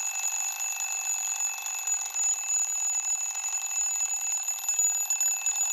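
Twin-bell alarm clock ringing without pause, its hammer rattling rapidly against the two metal bells: a steady, high-pitched ring, loud enough to wake the neighbours.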